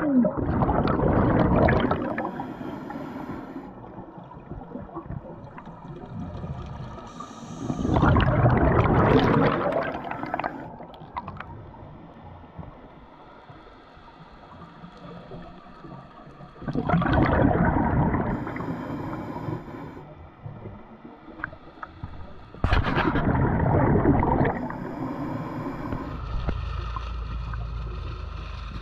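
Scuba diver's exhaled breath bubbling out of a regulator underwater. There are four loud bubbling bursts several seconds apart, with quieter underwater noise between them.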